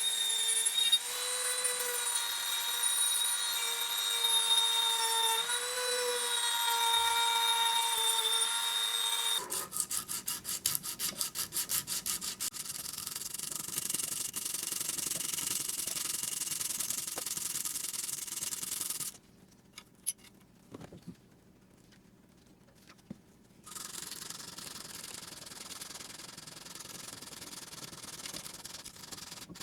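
A small electric hand tool's motor whines steadily, wavering slightly in pitch, for about nine seconds. A quick run of rapid clicks follows, then rubbing or sanding noise on the model's parts, broken by a few seconds of near silence.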